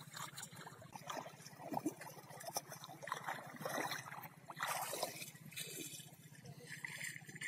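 Shallow, muddy pond water splashing and sloshing in irregular bursts as hands scoop and churn the mud on the bottom.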